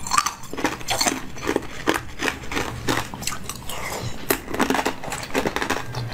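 Wet mouth sounds of jelly being sucked up a straw and chewed: a dense, irregular run of squelches and small clicks.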